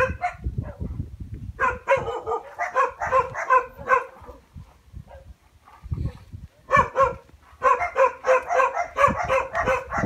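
A dog barking in quick runs of about four barks a second, in two bouts of a few seconds each.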